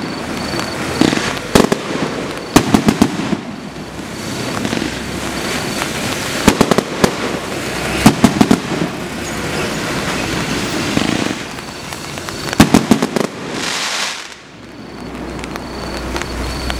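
A 100-shot square firework cake firing. Clusters of sharp cracks and pops come every few seconds as shells launch and burst, with a brief hissing rush near the end.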